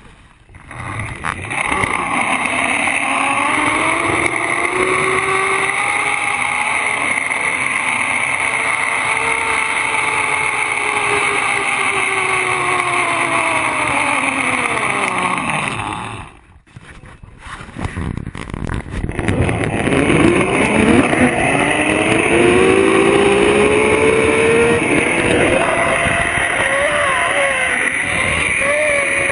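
Zip line trolley pulleys running fast along the steel cable: a loud whirring whine that rises in pitch and then falls, cuts out briefly about 16 seconds in, then starts again and climbs once more.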